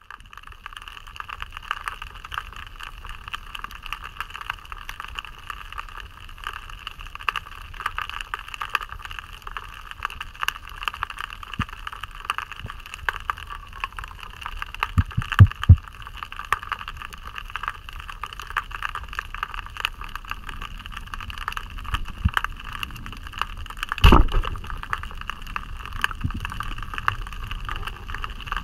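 Underwater sound picked up by a camera in a waterproof housing during a dive: a steady high whine with many faint crackling clicks. A few dull knocks come around the middle, and a louder knock comes near the end.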